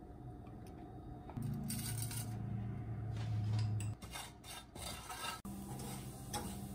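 Wooden spatula stirring and scraping red pepper flakes through hot oil in a nonstick frying pan, with a run of short scrapes and knocks in the second half, over a low steady hum.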